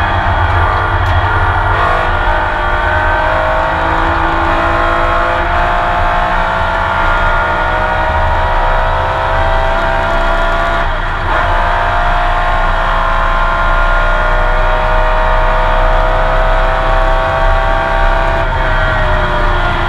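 Porsche 911 RSR's flat-six racing engine heard on board at full throttle, its pitch climbing slowly as it pulls through a long gear. About halfway through there is a quick upshift and the climb starts again, and near the end the revs fall away as the driver lifts.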